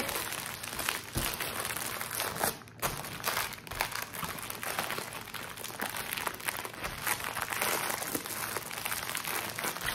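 Thin plastic packaging crinkling and crackling irregularly as small bags of diamond-painting drills are handled, folded and packed away.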